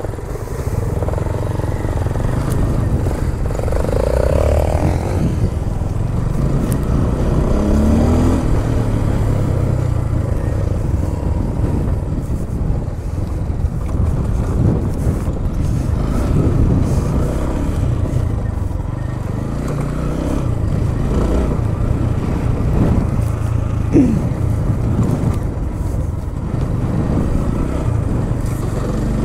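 Motorcycle engine running on an off-road trail, its note rising and falling with the throttle.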